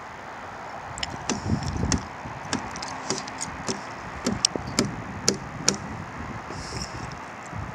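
An irregular series of sharp clicks and knocks, some with low thumps, starting about a second in and stopping shortly before the end, over steady background noise.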